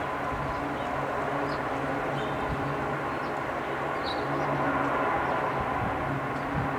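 Airliner's jet engines running at idle as it taxis after landing: a steady rumble with a faint whine, swelling slightly in the middle.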